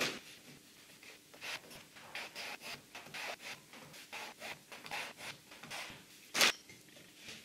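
Paint being rubbed and scrubbed across a canvas in short repeated strokes, about two a second, with one louder stroke near the end.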